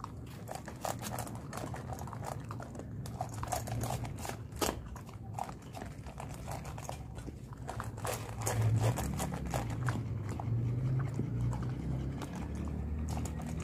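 Several dogs chewing dry kibble, a steady run of irregular crunches and bites. A low hum runs underneath, louder in the second half.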